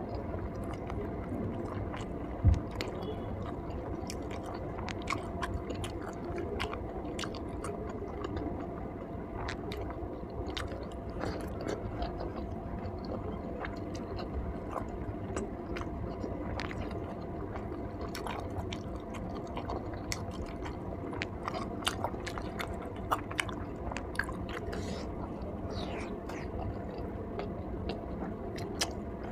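A person chewing and biting food close to the microphone, with many small wet clicks and smacks throughout. One sharp knock about two and a half seconds in.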